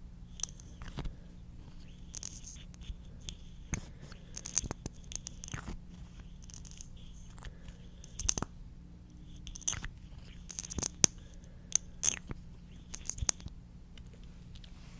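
Close-miked ASMR mouth sounds: irregular wet, sticky clicks and pops, one or two a second, over a faint steady low hum.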